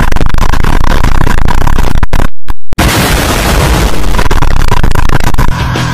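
Deafening, heavily distorted noise of the two monsters yelling, blown out to clipping. It cuts to silence for about half a second a little over two seconds in, then a loud explosion blast follows, which eases a little near the end.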